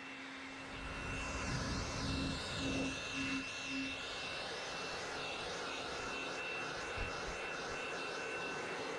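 Handheld leaf blower running steadily, blowing rinse water off a car's paint for forced-air drying: rushing air over a faint steady whine, growing louder about a second in as the nozzle works along the panels.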